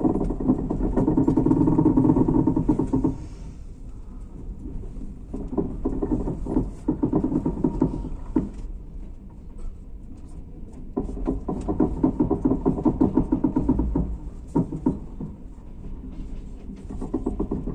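Wheels of a slowly departing passenger train clattering over rail joints and points, heard from inside the carriage. The clicking swells and fades every few seconds as tank wagons pass close alongside.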